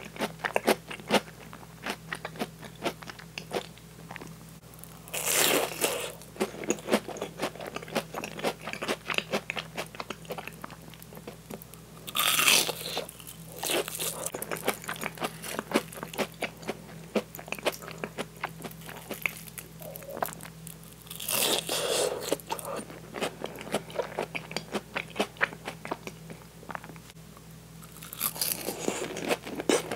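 Close-miked eating: crunchy bites into breaded crab cream croquettes, with four louder bursts several seconds apart and wet chewing and mouth clicks in between.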